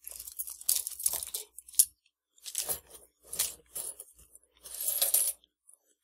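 A small metal luggage lock and keys being handled, giving a string of short, irregular clinks and rattles.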